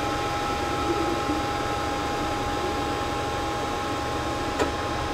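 Creality CR-10S Pro 3D printer running a print: a steady fan whir under a constant high whine, with soft movement sounds from the print head's motors. One sharp click comes about four and a half seconds in.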